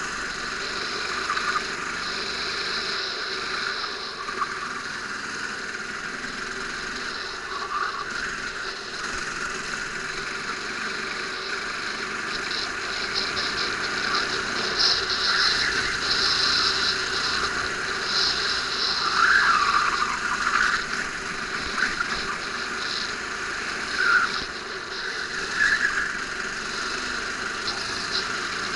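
Go-kart engine heard onboard at racing pace, the revs rising and falling lap after lap through the corners, with a high squeal in places and short louder bursts, the strongest about two-thirds of the way through.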